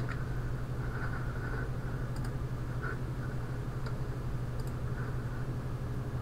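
Steady low background hum with a few faint, scattered clicks from someone working a computer.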